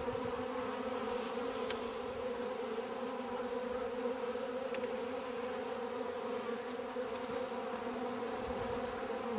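Steady buzzing hum of many honeybees flying around.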